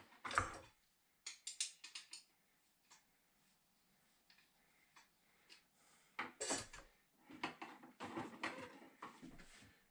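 Hand tools clicking and rattling against metal as headlight adjustment screws are turned: a quick run of sharp clicks about a second in, then a longer spell of clatter in the second half.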